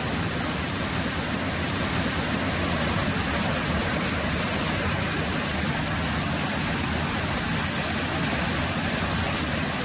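Heavy rain pouring steadily onto a flooded street, a dense, even rushing hiss.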